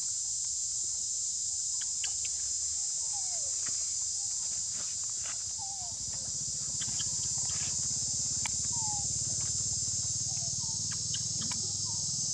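Steady high-pitched insect chorus, with scattered short falling chirps and a few sharp clicks over it; a low rumble comes in about halfway through.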